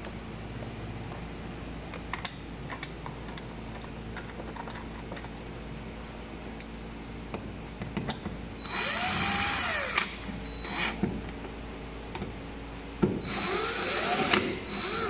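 Stanley cordless drill/driver driving the screws that fasten a plastic lampholder to its junction box. There are two main runs, about nine and thirteen seconds in, each with the motor's pitch rising and falling, and short blips after each. Light handling clicks come before the first run.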